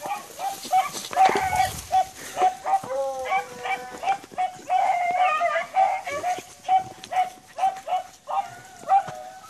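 A pack of beagles baying while running a cottontail rabbit: a steady run of short, high yelps about two a second, several dogs' voices overlapping.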